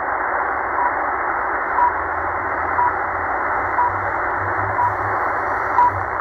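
RWM Moscow time signal on 9996 kHz heard through a Tecsun H-501X portable shortwave receiver in lower sideband: short, high beeps about once a second, the station's time pips, over a steady hiss of shortwave static.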